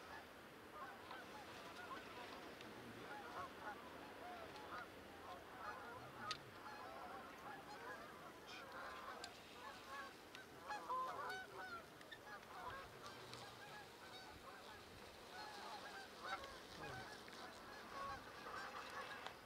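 Flock of Canada geese honking, many faint, overlapping calls without a break.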